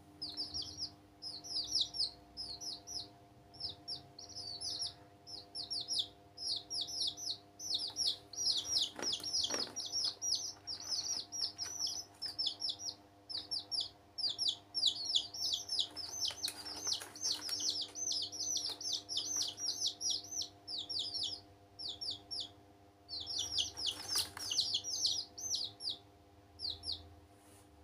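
Young domestic chicks, dyed bright colours, peeping: rapid high-pitched chirps, each falling in pitch, in fast runs with short pauses, stopping about a second before the end.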